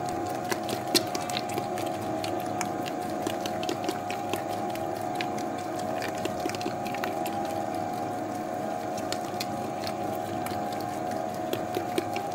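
Electric dough mixer running steadily while it kneads a wet, high-hydration dough, a machine hum with irregular clicks and slaps over it.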